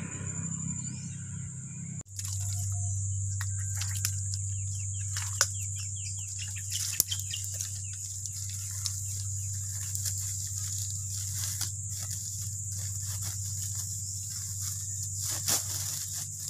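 Irregular clicks, knocks and rustles of someone working by hand at ground level in mangrove mud, over a steady low hum and a steady high whine.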